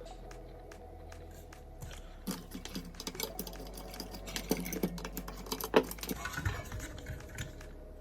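Irregular sharp clicks and taps of small hard parts being handled, thickest from about two seconds in to about six seconds in, over a steady low hum.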